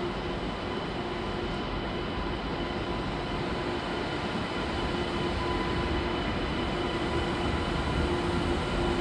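Double-deck high-speed electric train running through an underground station: a steady rumble with a held hum and a higher whine over it, growing a little louder in the second half.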